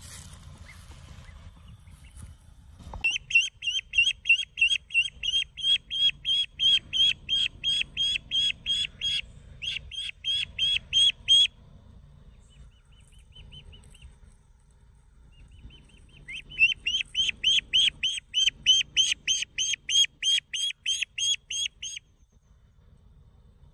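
A duckling peeping loudly and rapidly, about four high, shrill peeps a second, in two long runs of several seconds each with a pause of a few seconds between.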